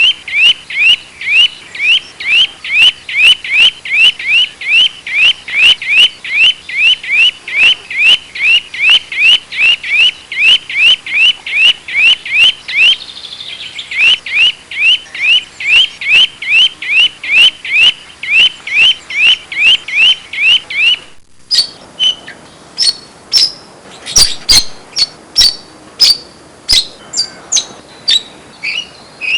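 A bird calls over and over, one quick sweeping note about two to three times a second, for most of the stretch. Near the end it cuts abruptly to a different bird giving short, sharp, higher chirps at an uneven pace.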